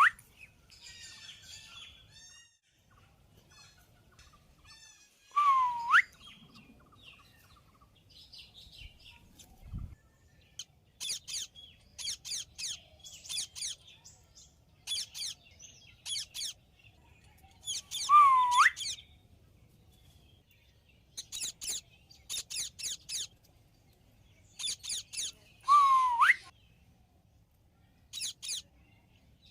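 Birds calling: a loud swooping whistled call, dipping and then sweeping sharply up, comes three times at uneven intervals, and between them run bursts of quick, very high-pitched chirps.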